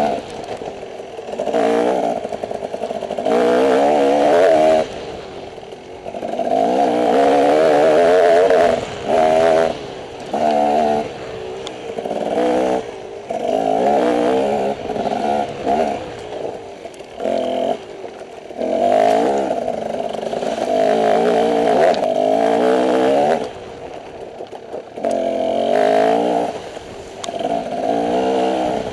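Dirt bike engine being ridden with the throttle opened and closed over and over: its pitch climbs in repeated surges of a second or two, dropping back between them.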